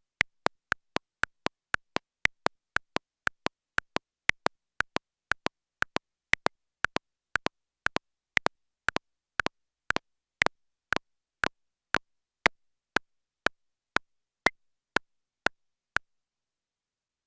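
Two metronome click tracks, Ableton Live's click and CLOCKstep Multi's click monitored back through Ableton, ticking out of step as a doubled pattern of about four clicks a second. From about ten seconds in they fall into a single click twice a second, the two clicks now time-aligned by a negative latency offset. Every fourth click is stronger, marking the bar, and the clicks stop a second or so before the end.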